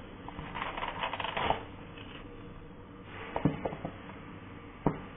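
ASMR handling sounds: a burst of crinkly rustling, then a few quick taps and one sharp click near the end.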